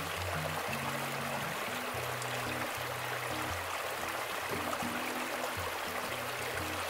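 Small mountain stream trickling and splashing over a rock step, a steady rush of water. Soft background music with low notes plays underneath.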